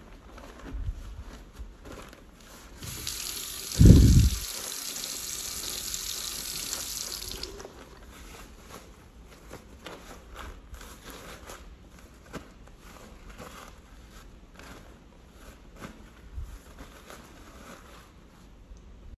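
Sink faucet running for about four seconds, a steady hiss of water, with one heavy thump in the middle of it. Then a paper towel rustles and crumples as wet hands are rubbed dry with it.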